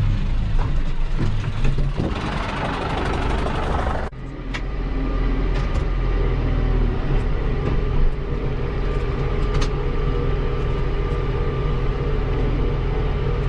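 Tractor engine running steadily at working speed, with an abrupt break in the sound about four seconds in.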